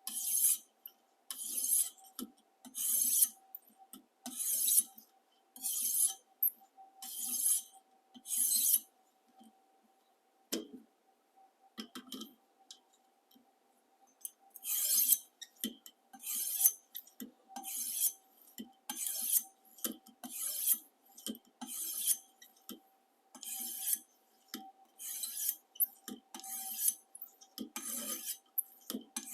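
A sharpening stone on a guided knife sharpener drawn in repeated strokes along a chef knife's steel edge, a short high scrape about every second. There are about seven strokes, a pause of several seconds with a couple of light clicks, then about ten more strokes. A faint steady hum sits underneath.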